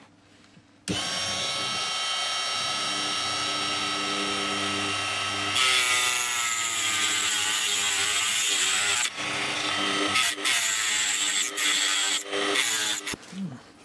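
Dremel-type rotary tool with a cut-off disc starts about a second in and runs free with a steady whine. From about halfway it grinds through a copper housing, the sound turning harsher as the motor's pitch drops under load, and it ends in several short bursts of cutting.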